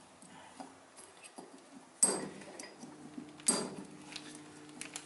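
Steel piston parts and snap-ring pliers clinking on the bench as a wrist-pin retaining clip is fitted to a Cummins 6.7 piston. There are two sharp ringing clinks, about two and three and a half seconds in, with light ticks between them, and a faint steady low hum from about three seconds.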